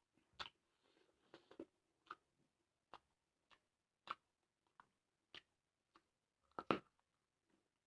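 Close-miked chewing of vegetables: short, sharp crunchy clicks roughly every half second to a second, with a louder crunch near the end.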